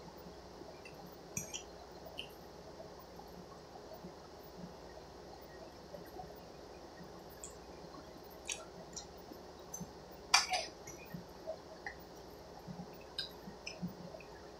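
Quiet eating sounds: a fork clicking and scraping against a stainless steel pot, with soft wet chewing sounds. The clicks come scattered and irregular; a sharper click about ten seconds in is the loudest.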